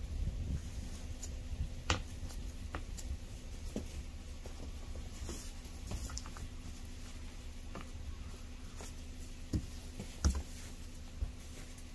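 A snow brush sweeping and scraping snow off a car's windshield and hood: irregular soft scrapes and brushing strokes with scattered small knocks, the sharpest about two seconds in and near the end.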